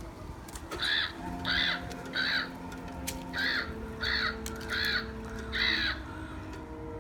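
Crow caws, seven short calls in a run of three and then four, over a background of held low notes.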